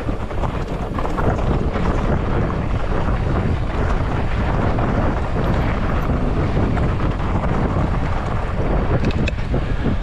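Wind buffeting an action camera's microphone as a mountain bike is ridden along a dirt trail, a steady loud rush with small knocks and rattles from the tyres and bike over the ground.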